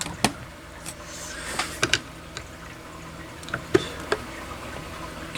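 A scatter of small sharp clicks and taps, about eight over several seconds, from a flathead screwdriver working the release under a Potter SH1224 horn/strobe to free it from its mounting bracket.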